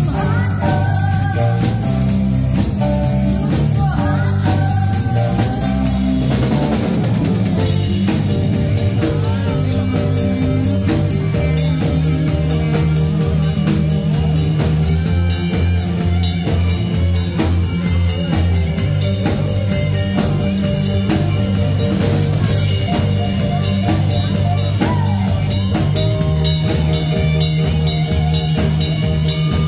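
Live band playing loud amplified music, with a drum kit keeping a steady beat alongside electric guitar and steady low bass notes. A woman sings into a microphone near the start.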